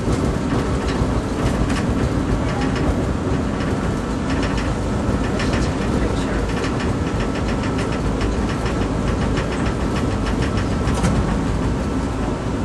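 TTC streetcar in motion, heard from inside: a steady rumble of the wheels on the rails and the running gear, with rapid runs of clicking and rattling that come and go.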